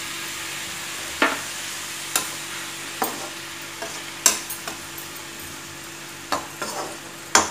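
Snake gourd slices frying with a steady sizzle in a metal kadhai while a slotted metal spoon stirs them, knocking and scraping against the pan about six times.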